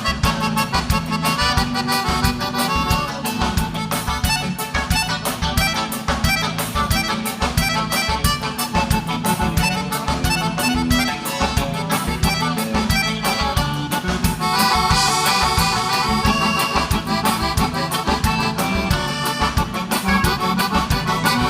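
Live gaúcho dance band playing an instrumental break led by accordion, with bass and a steady, fast dance beat underneath.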